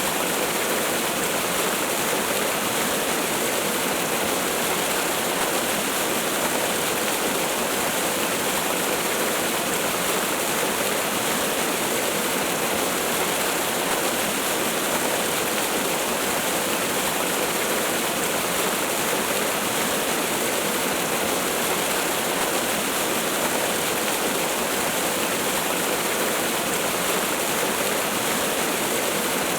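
Waterfall rushing in a steady, unbroken hiss of falling water with little deep bass.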